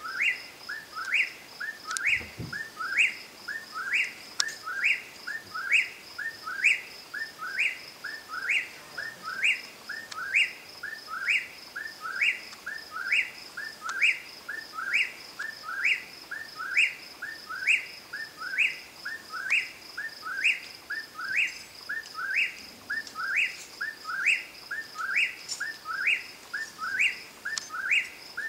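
Whip-poor-will singing its name over and over, a little more than one 'whip-poor-will' phrase a second without a break, each phrase ending in a sharp upward sweep. A steady, pulsing high tone runs behind it.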